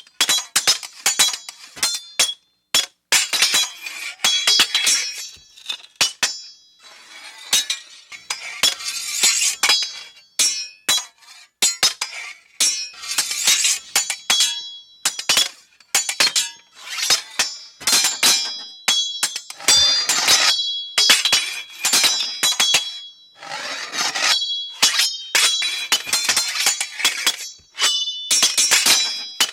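Steel sword blades clashing again and again in an irregular run of quick strikes, each hit ringing on briefly with a high metallic tone.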